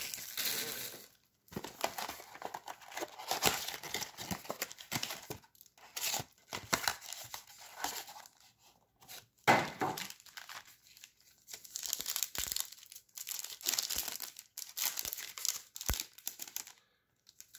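Trading card packaging being torn open and crinkled: irregular bursts of rustling and ripping that stop shortly before the end.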